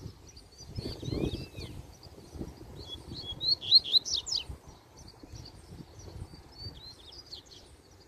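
Double-collared seedeater (coleiro) singing. Its loudest phrase is a quick run of high chirping notes about three seconds in, with fainter, shorter phrases around it and another near the end. There is a brief low rumble about a second in.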